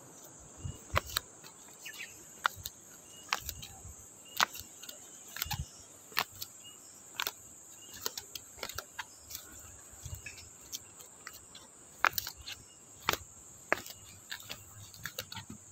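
Footsteps on concrete steps and a concrete path, sharp taps about once a second, over a steady high-pitched insect drone.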